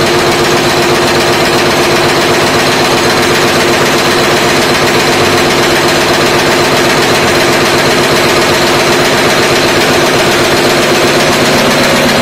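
Automatic wire nail making machine running at speed: a loud, steady, rapid clatter of repeated strikes as it cuts the wire and hammers the nail heads.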